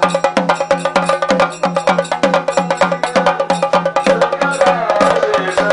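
Festival drums of a Kerala procession beaten in a fast, even rhythm, about four strokes a second, each stroke a sharp crack with a low note that drops in pitch, over a steady held note. A wavering, melody-like sound comes in near the end.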